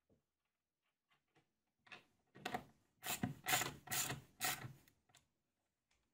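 A hand wrench turning a nut on a bolt through the plywood frame of a homemade belt grinder. About six short strokes come close together, starting about two seconds in.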